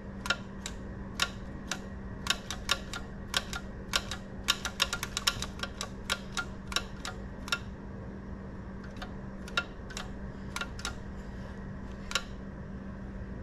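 Irregular light clicks and taps of small metal parts being handled on a small engine's throttle linkage, over a steady low hum. The clicks come in a dense flurry in the first half and are sparser later.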